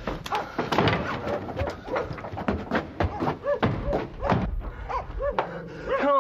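Quick footsteps and knocks on stone and wood as a man hurries off, with a dog barking several times in the second half.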